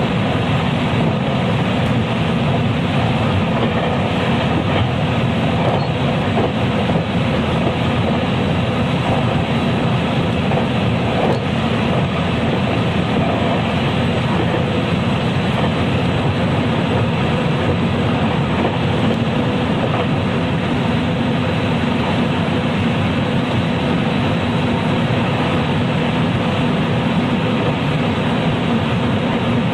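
JR West 223 series electric multiple unit motor car (KuMoHa 223-3016) running at speed: steady wheel, motor and rail running noise that holds even throughout.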